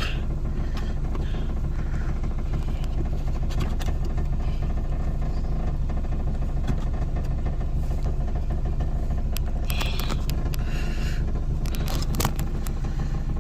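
Nissan AD wagon's engine idling steadily, a continuous low hum, with scattered light clicks and taps from the gauge and its mount being handled.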